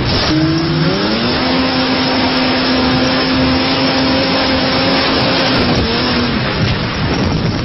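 Car engine driving a small boat at speed, its pitch rising in the first second and then held high, falling about six seconds in, over heavy rushing wind and water noise.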